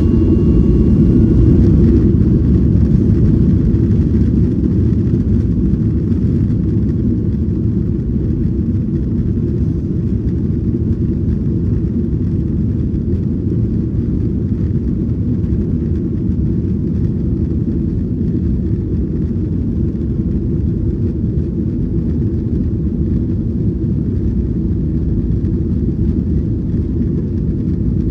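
Steady low rumble inside the cabin of a Boeing 737-900ER, from its CFM56 jet engines and airflow at high power. A few thin whining tones fade out in the first second or two.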